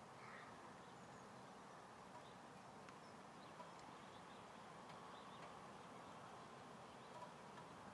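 Near silence: faint steady outdoor hiss with a few scattered faint ticks.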